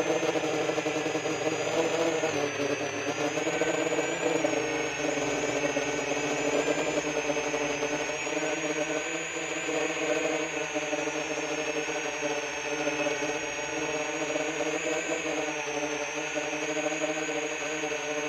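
Motors and propellers of a 10-inch freestyle FPV quadcopter whirring in flight. It is a steady, high whine whose pitch wavers up and down slightly as the throttle changes.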